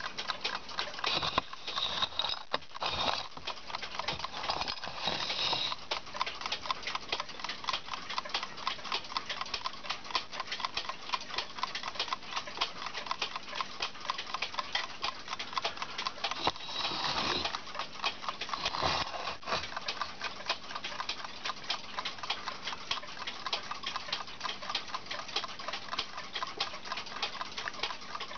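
Eastman Kodak mechanical photo timer running, its clockwork movement ticking fast and evenly. A few brief louder noises break in near the start and again past the middle.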